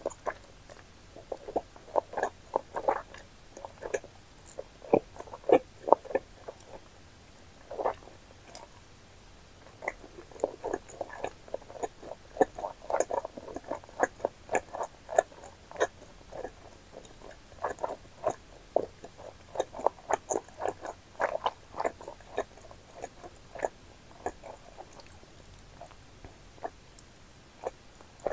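Close-miked chewing of wide Chinese glass noodles in spicy sauce: a steady run of short, irregular mouth clicks and smacks, with a brief lull about eight to ten seconds in.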